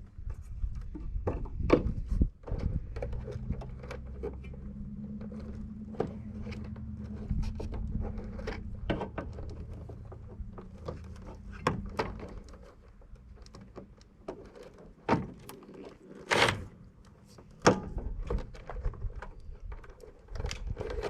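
Irregular knocks, clicks and clatter of sheet-metal and plastic parts being handled and pried while a small window air conditioner is taken apart, with a low steady hum for several seconds early on.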